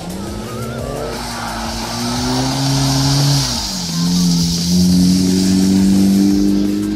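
A Mitsubishi Lancer Evolution's turbocharged four-cylinder engine held at high revs as the car drifts on a wet skidpan. The revs climb over the first second, dip about three and a half seconds in, then hold again. The tyres hiss as they slide through the water.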